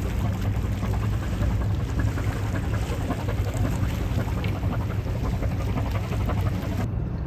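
A steady low engine rumble running without a break.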